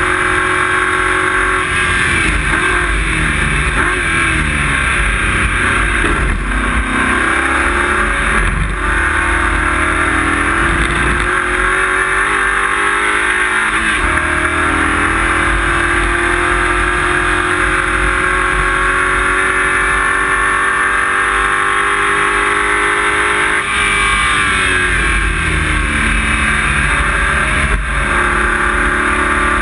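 Race car engine heard from inside the cockpit, running loud and hard, its pitch climbing and dropping again and again as it is driven through the gears, over constant road and cabin noise.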